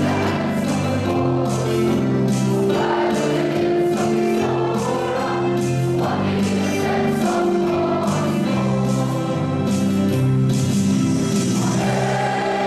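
A large crowd of students and teachers, boys' and girls' voices together, singing a school anthem as one choir, moving through a series of held notes.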